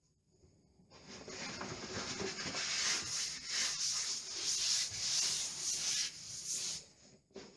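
Lining paper being rubbed and smoothed onto the wall, a repeated brushing rub that starts about a second in and stops near the end.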